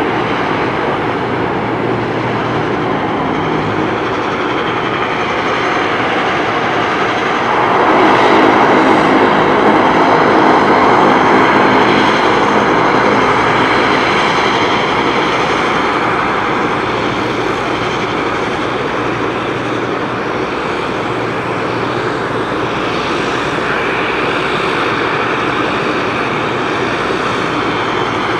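Turboprop engines and propellers of a De Havilland Canada Dash 8-300 running, a steady drone that grows louder about eight seconds in, with a pitched propeller hum for several seconds, then eases off.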